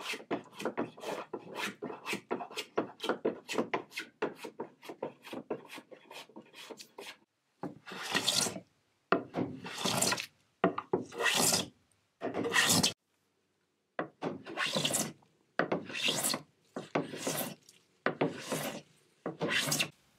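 Hand plane shaving the wooden floorboards in quick, short strokes, several a second. After about seven seconds these give way to slower, longer scraping strokes about a second apart, with short pauses between them.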